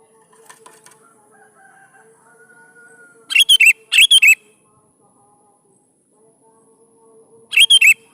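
Sooty-headed bulbul (kutilang) singing short, loud bubbling phrases: two in quick succession a little over three seconds in and another near the end. A faint steady low hum runs underneath.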